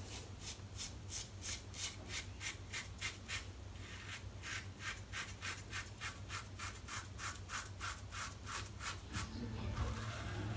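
Supply single-edge safety razor scraping through lathered stubble in quick short strokes, about three or four a second, stopping about 9 seconds in. The blade is well worn, used for many shaves.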